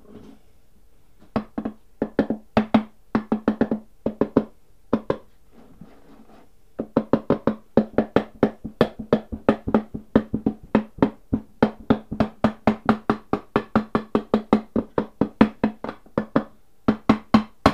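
A mallet tapping the halves of a Minarelli AM6 aluminium crankcase together. The first few seconds bring scattered blows, then after a short pause comes a steady run of about three sharp, ringing strikes a second. The halves were slow to close because a centring dowel was slightly misaligned.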